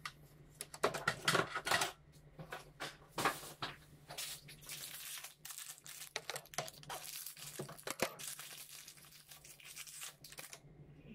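Thin plastic packaging rustling, crinkling and tearing in irregular bursts as parts are unwrapped by hand; it stops shortly before the end.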